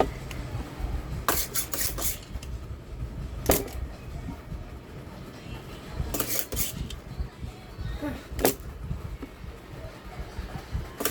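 Soldering and desoldering work on a circuit board: a handful of short, sharp scraping and clicking noises from the tools, over a low steady hum.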